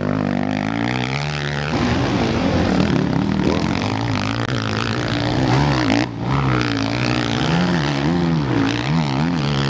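Motocross motorcycles racing on a dirt track, their engines revving up and falling back again and again as the riders power through the corners.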